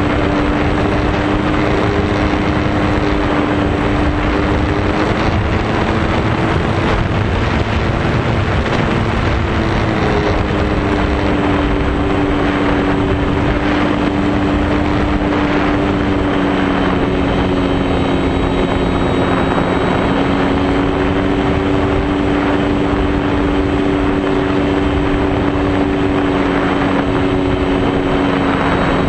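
RC airplane's electric motor and propeller running at steady throttle, heard from a camera carried on the plane, with heavy wind rush over the microphone. The motor's pitch shifts slightly a few times.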